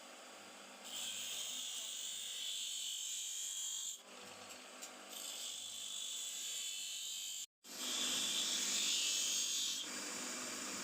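Steady abrasive scrubbing on rusty knife metal during rust removal, a hiss that runs in stretches: it pauses briefly about four seconds in, cuts out for an instant past halfway, and comes back louder before settling lower near the end.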